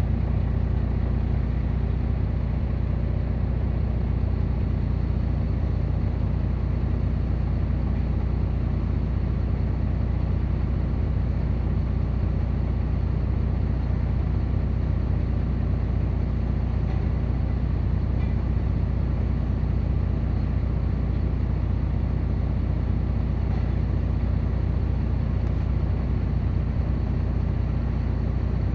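Heavy diesel engine of mining machinery running steadily at a constant speed: an even, low rumble that does not rise or fall.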